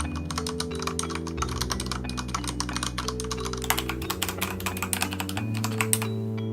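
Fast typing on a Corsair K68 RGB mechanical keyboard with red linear switches, a quick run of clacking keystrokes that grows denser and louder about halfway through and pauses briefly near the end. Background music with held low notes plays underneath.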